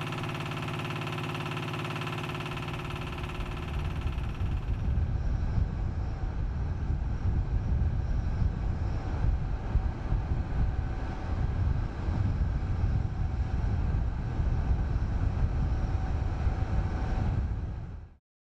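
A steady mechanical hum for about four seconds gives way to an uneven low rumble. The rumble cuts off suddenly near the end.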